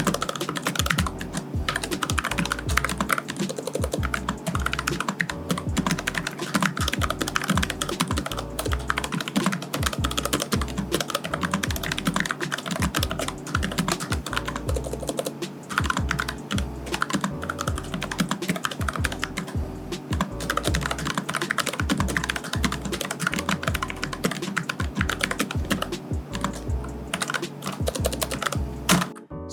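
Typing on a Thunderobot K96 low-profile mechanical keyboard with Huano red linear switches: a fast, continuous stream of keystroke clacks with a slight rattle from the stabilizers. The typing stops abruptly just before the end.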